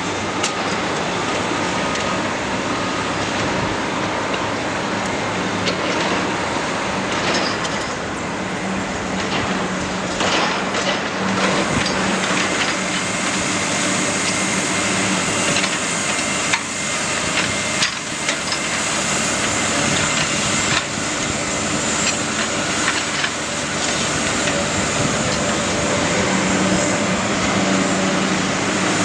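Heavy demolition machinery running with a steady engine drone while building material is broken apart, with frequent cracks and knocks throughout.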